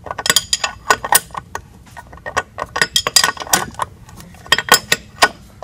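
Ratcheting wrench clicking and metal parts clinking in rapid, irregular clicks as a bolt is run into a driveshaft-to-transmission flange. The bolt is binding early, before it seats.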